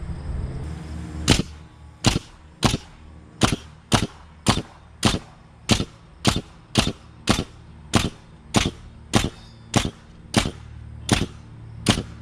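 Nail gun firing nails into a timber beam, about twenty sharp shots in a steady run, a little under two a second, starting about a second in.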